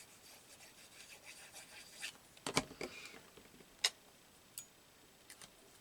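Paper-crafting at a table: a run of quick rubbing strokes on paper, then several sharp clicks and taps of tools and materials being picked up and set down.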